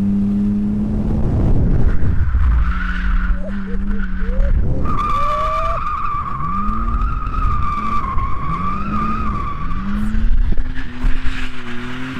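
BMW drift car's engine heard from inside the cabin, revving up and down repeatedly as the car is drifted. The tyres squeal as it slides, with a long wavering squeal from about five seconds in.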